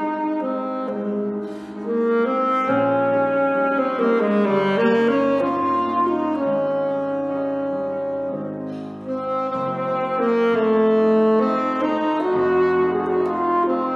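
Alto saxophone playing a slow, sustained melody over piano accompaniment, with two short breaks between phrases, about two and nine seconds in.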